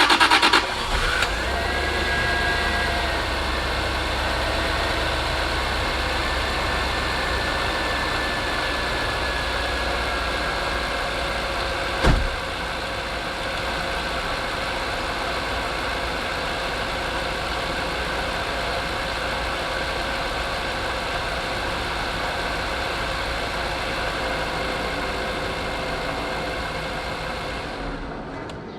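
Jaguar XJR's supercharged V8 catching at the end of cranking, then idling steadily, with a whine that settles slightly lower over the first few seconds. A single sharp click sounds about twelve seconds in.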